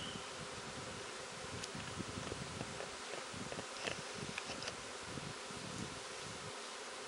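A honeybee swarm buzzing, a steady mass hum of many bees in flight, with a few faint clicks.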